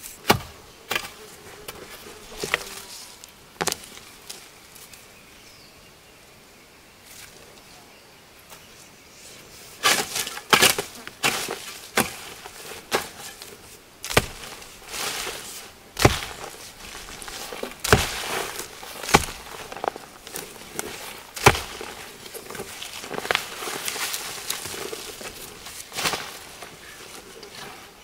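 A hoe striking into dry soil in repeated, irregular blows to dig up taro, with soil and roots scraping and crumbling. The strikes pause for a few seconds about five seconds in, then come thick and fast.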